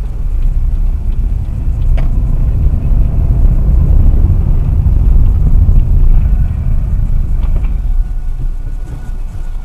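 Heavy low rumble of a car on the road, swelling through the middle and easing near the end, with a single sharp knock about two seconds in.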